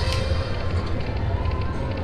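Casino slot-machine floor din: a steady rumble of background noise with held electronic machine tones over it.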